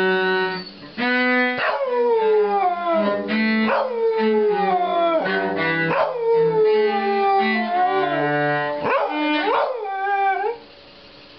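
A dog howling along with a cello: a series of falling, wavering howls over long, steady cello notes. Both stop briefly near the end.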